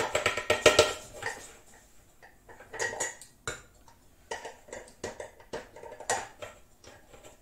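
Stainless steel camp cookware clinking and knocking as it is handled: a ringing metallic clatter in the first second, then scattered light knocks and taps.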